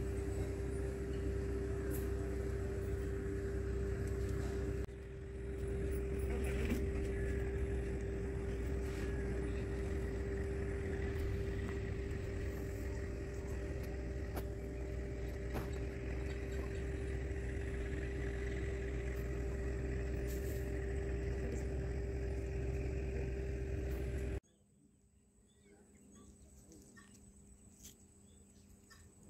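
A motor running steadily: a low rumble with a steady mid-pitched hum. It cuts off abruptly near the end, leaving a much quieter background.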